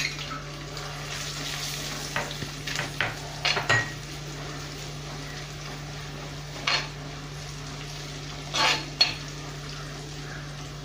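Curry base sizzling in hot oil in a cooking pot while it is stirred, the spoon knocking against the pot several times.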